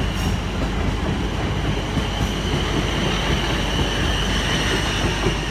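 Passenger train pulling out of the station: a steady rumble with a thin, high, steady whine over it.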